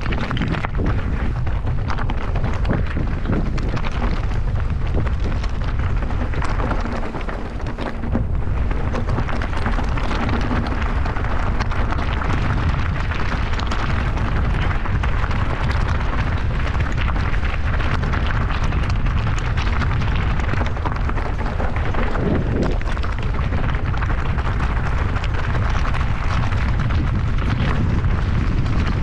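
Wind noise on the microphone of a camera carried on a mountain bike ride, mixed with the bike rattling over rough trail: a loud, steady rush full of small knocks.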